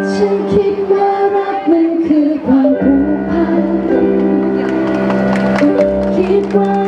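A woman singing a pop ballad live into a handheld microphone, with long held notes, over instrumental accompaniment.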